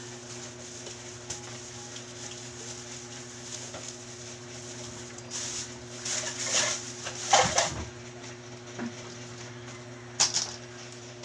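Plastic bags rustling and crinkling in a run of short bursts around the middle, with one more brief rustle near the end, over a steady low hum.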